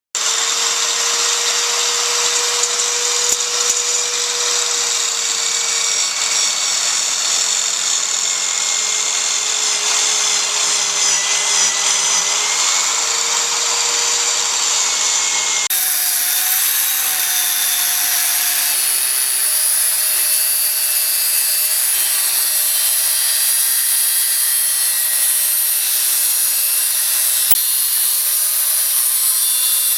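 Track saw running through a thick sycamore slab: a steady motor whine over the noise of the blade in the wood. About halfway through the whine jumps to a higher pitch.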